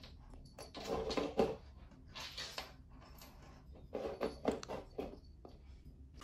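Faint, short bouts of scuffling and rustling, four or five of them, from cats nosing and pawing around a small plastic cup of catnip on a wooden floor.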